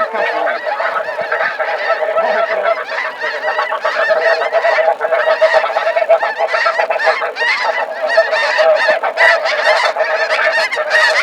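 A huge flock of snow geese calling all at once: a dense, unbroken din of many overlapping honks and yelps.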